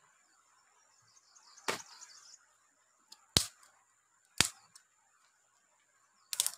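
Dry wooden sticks snapped by hand: a sharp crack about two seconds in, two more about a second apart, and a quick cluster of cracks near the end.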